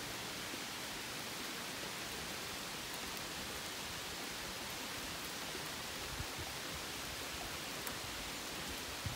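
Steady rain falling on the leaves of forest trees, an even hiss with no let-up.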